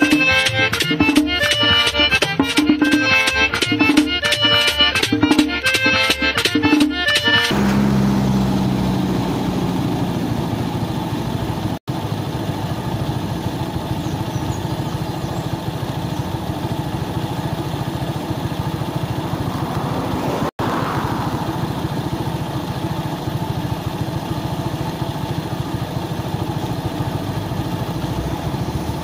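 Rhythmic background music with regularly repeating notes that cuts off abruptly about seven seconds in, replaced by a steady low rumbling noise that drops out for an instant twice.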